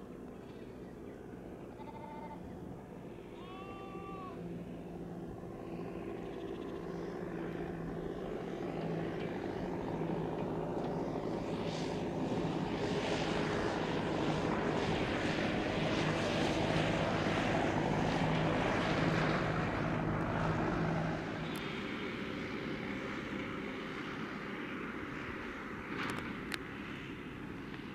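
Lambs bleat three times in the first few seconds. A John Deere tractor pulling a livestock trailer then approaches and passes, its engine and tyre noise growing steadily louder to a peak and falling away suddenly about 21 seconds in.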